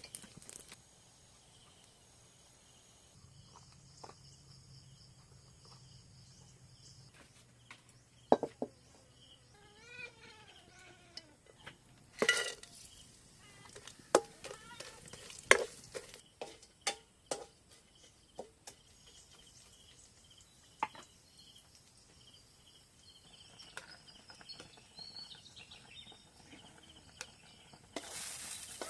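Quiet farmyard background with scattered sharp knocks and clatter, most of them between about 8 and 19 seconds in. A short run of rising-and-falling animal calls comes about ten seconds in, with faint high insect or bird tones behind.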